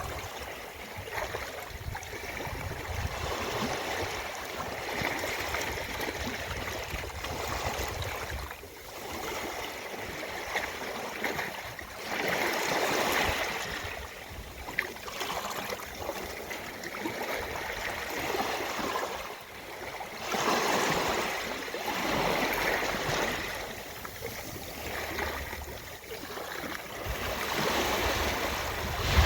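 Ocean waves washing onto a beach: a steady rush of water that swells louder every several seconds as waves break and draw back.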